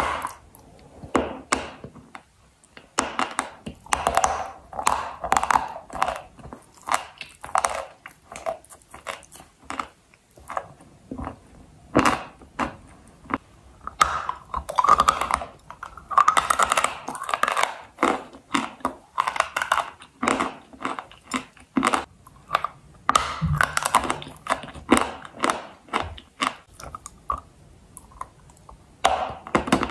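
Close-miked biting and chewing of dry, crispy white clay: repeated sharp crunches and crumbling clicks in clusters, with a few short pauses.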